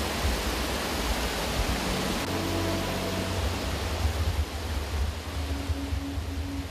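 Steady rushing noise with a heavy, unsteady low rumble and faint music beneath, the music coming forward near the end.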